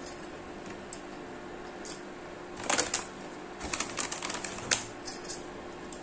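Pieces of a white chocolate slab being handled and set down on the plastic plate of a digital kitchen scale. A scatter of light clicks and knocks comes in two clusters, about two and a half seconds in and again from about three and a half to five seconds.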